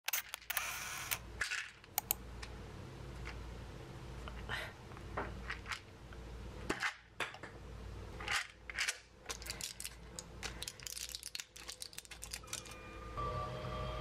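Close handling noises: rustling cloth and a run of small clicks and taps as a small plastic bottle is handled. About a second before the end, a steady hum with a high, even tone sets in.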